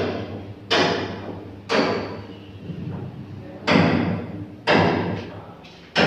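Heavy blows, about one a second with a short pause midway, each echoing through bare concrete rooms: hammering on a building under construction.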